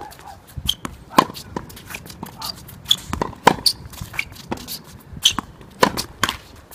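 Tennis practice on a court: a string of sharp knocks from the ball coming off racket strings and bouncing on the court, mixed with quicker lighter footsteps, a few louder hits standing out.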